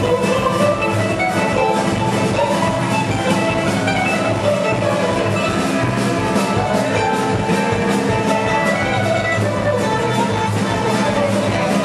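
Live acoustic string band playing an instrumental passage: mandolin, acoustic guitars and fiddle over a drum kit keeping a steady beat.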